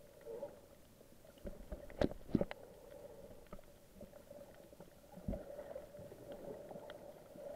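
Muffled underwater ambience with the camera submerged: a faint steady hum under scattered small clicks, with two louder knocks about two seconds in and another about five seconds in.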